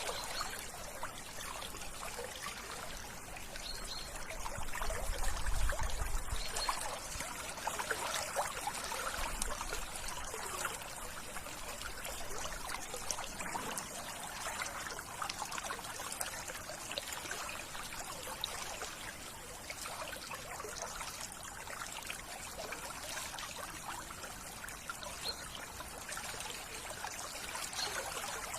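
Steady trickling of flowing water from a small stream, with a brief low rumble swelling about five seconds in.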